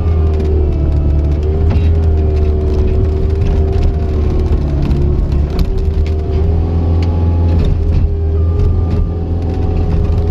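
Cat 279C compact track loader working: its diesel engine runs steadily under a held, slightly wavering whine, with scattered clicks and knocks.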